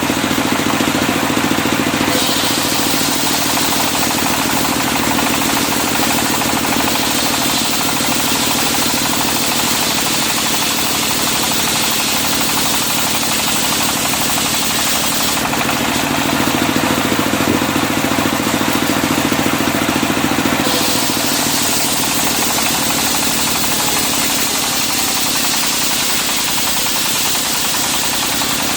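Engine-driven circular sawmill running steadily, the engine droning without a break. A high hiss, the blade cutting through the wood, comes in about two seconds in, drops away for about five seconds around the middle, then returns.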